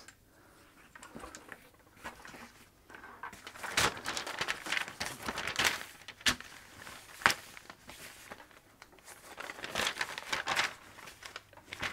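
Paper instruction booklet rustling and crinkling as its pages are handled and turned, with several sharper crackles of paper.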